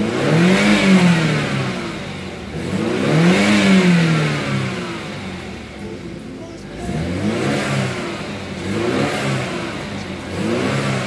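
2015 BMW 328i's turbocharged 2.0-litre four-cylinder engine, heard from the driver's seat, revved up from idle and let fall back several times: two longer revs in the first half, then three shorter, lighter ones.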